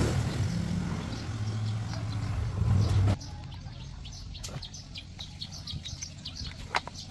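A low, steady machine hum that cuts off abruptly about three seconds in, followed by birds chirping.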